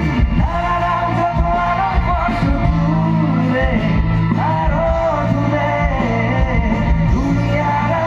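A male vocalist singing live into a microphone over loud backing music, amplified through an outdoor concert PA system.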